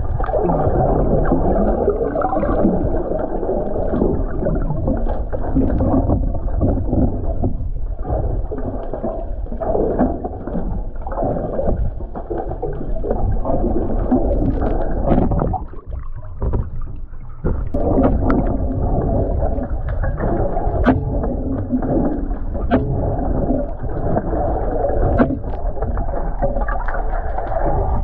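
Muffled water churning and sloshing with a low rumble, as from a boat moving through the sea, with little above the low and middle range. It drops away briefly about sixteen seconds in.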